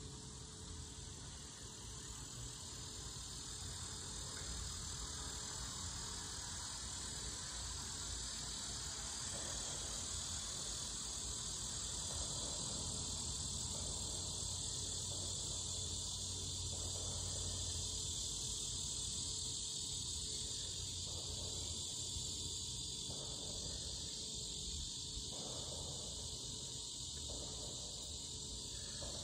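Steady, high-pitched drone of a summer insect chorus.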